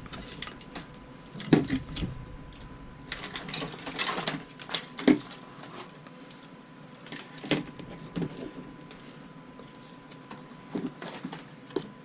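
3D printer kit parts being handled and set down on a table: scattered clicks, light knocks and rustles in irregular clusters, over a faint steady tone.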